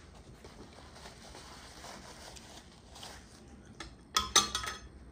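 Metal cutlery clinking against a plate and pan: a quick run of sharp clinks a little over four seconds in, after a few seconds of faint handling noise.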